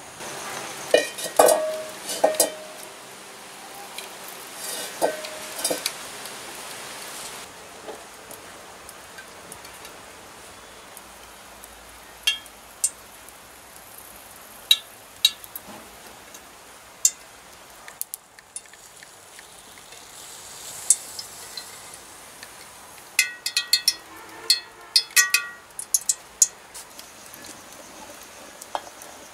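Cooking sounds: scattered clinks and taps of a spoon against an earthenware bowl and an aluminium wok, some with a short metallic ring. They come in clusters near the start and again about three-quarters of the way through, over a low steady hiss.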